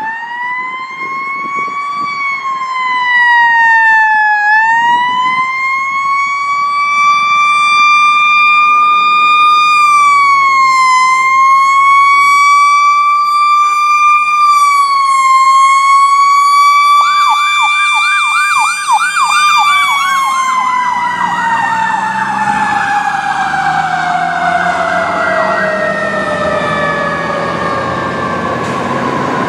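Fire engine's siren wailing, its pitch rising and falling slowly. Part way through, a second siren joins with a fast yelp. As the truck passes, the wail's pitch falls steadily and the truck's engine rumbles underneath.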